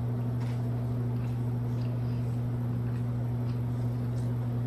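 A steady low electrical hum with an overtone, unchanging throughout, and a few faint small clicks scattered over it.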